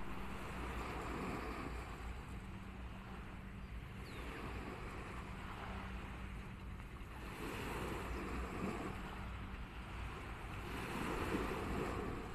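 Small sea waves washing onto a sandy beach, swelling and easing every few seconds, with wind on the microphone and a faint steady low hum underneath.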